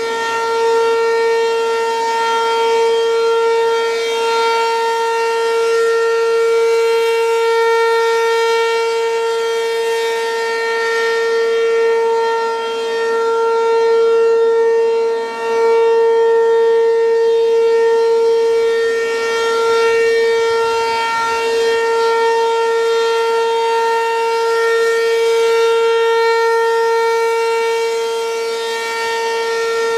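American Signal RM-127 outdoor warning siren sounding the alert signal: one loud, steady, unwavering tone. Its loudness swells and fades slowly, with a brief dip about halfway through.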